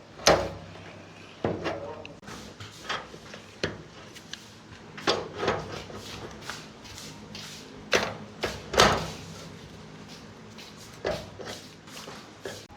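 A series of irregular knocks and clatters, some sharp and loud, others lighter, with no steady rhythm.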